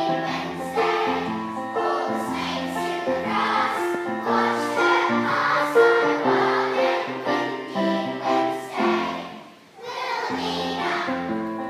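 Children's choir singing a song, with a brief pause between phrases near the end.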